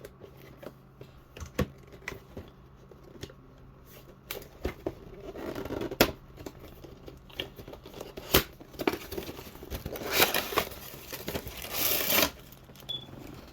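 Cardboard toy box and its packaging being opened by hand: sharp clicks and snaps of flaps, with rustling, crinkling and tearing, heaviest about midway and again near the end.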